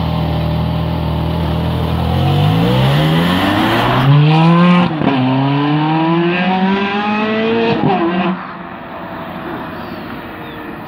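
A car's engine pulling away hard: a steady note first, then revs climb from about two seconds in, drop at a gear change about five seconds in, and climb again through the next gear. After about eight seconds the engine noise falls away sharply as the car drives off.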